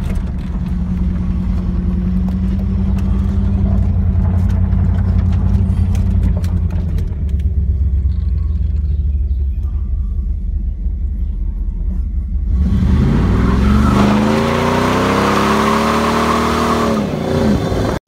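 Car engine and road noise heard from inside the cabin while driving: a steady low drone, then about two-thirds through a louder rush of noise as the engine note climbs, holds and drops away just before the end.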